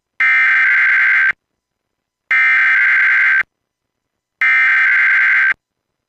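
Emergency Alert System SAME header for a Required Weekly Test: three identical bursts of screechy digital data tones, each about a second long with a second's silence between them.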